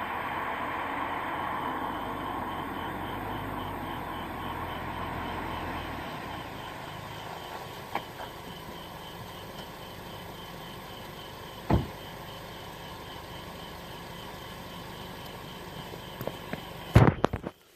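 Mk7 Golf GTI cabin noise, steady then easing, with a faint fast ticking throughout. Sharp clicks stand out about 8 and 12 seconds in: the metallic click the owner hears in manual shift mode and cannot place. Near the end comes a cluster of loud knocks, then the sound cuts off suddenly.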